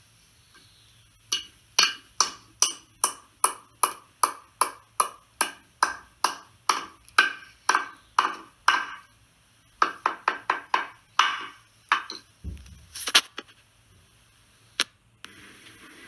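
Hammer blows, about two strikes a second with a short ringing ping after each, then a quicker flurry of blows and a few separate knocks near the end.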